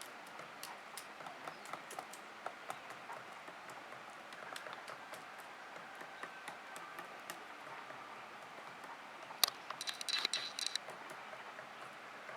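Woodpecker pecking at wood: faint, irregular taps a few times a second, with a quick flurry of louder, sharper taps about ten seconds in.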